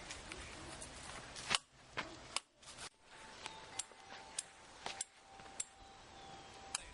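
A homemade combustion potato gun's push-button igniter clicked about a dozen times at irregular spacing, with no shot: the spud gun is failing to fire.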